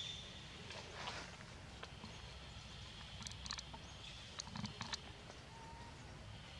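Quiet forest ambience: a steady faint high hiss with scattered soft clicks and rustles.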